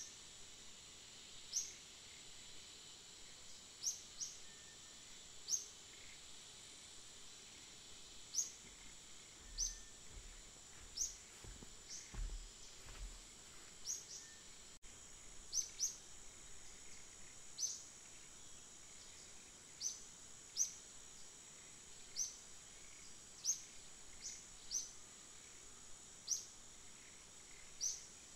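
Outdoor ambience: a steady high insect drone, with short, high chirps breaking in irregularly about every second or so.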